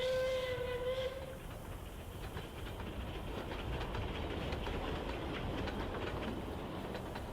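A train whistle blows one held note for about a second at the start, then the train's wheels clatter steadily over the rail joints in a fast run of clicks over a low rumble.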